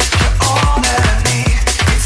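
Electronic dance music backing track with a steady beat, about two beats a second.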